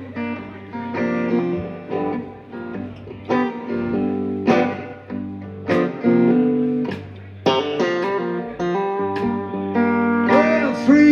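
Live band playing the instrumental intro of a song, led by strummed guitar chords.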